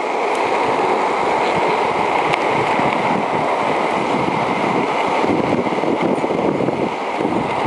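Plastic penny board's wheels rolling over smooth asphalt, a steady rushing noise with a few faint ticks, mixed with wind on the microphone.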